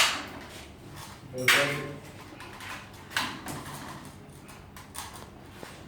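Four sharp knocks or clatters about a second and a half apart, the first two loudest, with faint room sound between them.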